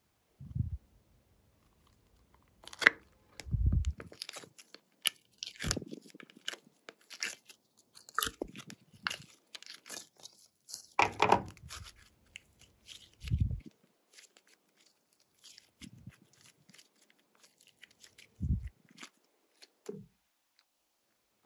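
Glossy slime being mixed and worked by hand, giving irregular crackling, sticky pops and a few short, soft low thuds.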